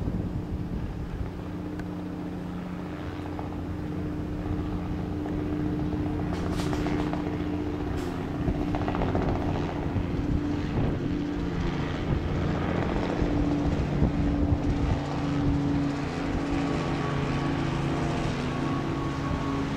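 Engines running: a steady drone with several held low pitches that slowly shift and overlap, growing a little louder over the middle.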